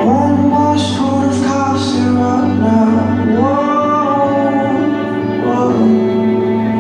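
A song playing, with a singer holding long, sliding notes over an evenly pulsing bass line. The bass pulse drops out about three and a half seconds in.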